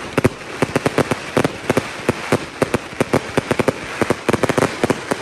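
Fireworks display going off: a rapid, irregular barrage of sharp bangs and cracks, several a second.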